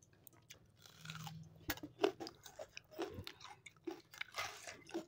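Raw red onion being bitten into and chewed: faint, irregular crisp crunches mixed with wet chewing of curd rice, the sharpest crunches about two seconds in.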